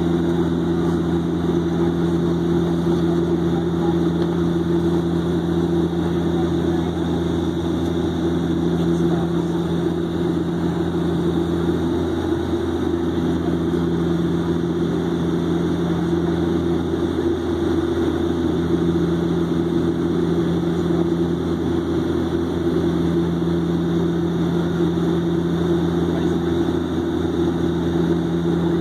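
Dash 8 turboprop's engines and propellers droning steadily at cruise, heard inside the cabin: a low hum under a few steady propeller tones, which waver briefly a few times.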